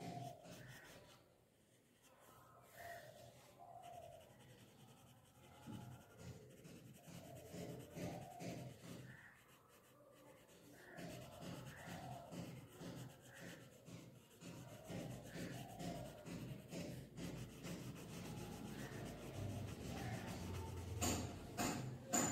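Graphite pencil scratching across paper in quick back-and-forth shading strokes, with short pauses between runs. A few sharper, louder taps come near the end.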